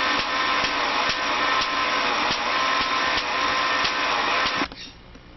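A homemade Van de Graaff generator's electric motor and belt running steadily, with irregular sharp ticks about once or twice a second. It cuts off suddenly near the end, leaving a low hum.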